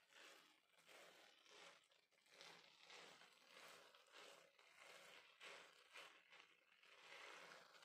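Near silence, with very faint repeated scrapes of a spatula stirring cooked rice and dry fruits in a non-stick pan.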